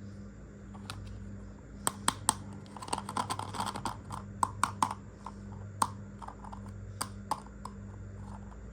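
Light clicks and taps of small miniature toy kitchen pieces being handled and set down, irregular, with a busier patch of rattling clicks about three seconds in.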